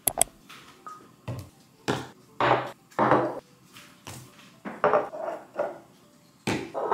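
Glass bottles and plastic jars being set down one after another on a kitchen countertop: a series of separate knocks and clunks.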